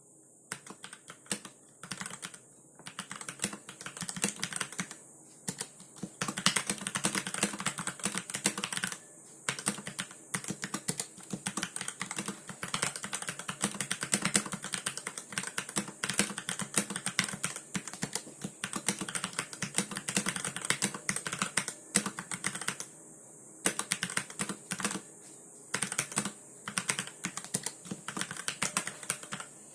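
Typing on a RAKK Lam-ang Lite mechanical keyboard: fast, continuous runs of key clicks and key-bottoming clacks, broken by a few brief pauses.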